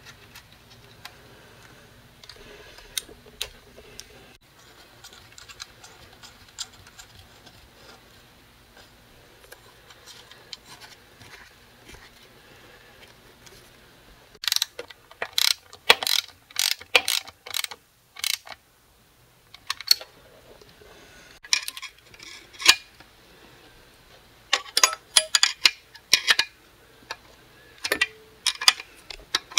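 Socket ratchet clicking in short bursts while the clamps on the silicone intercooler hoses are tightened. Scattered light clicks at first, then several quick runs of sharp ratcheting clicks from about halfway through.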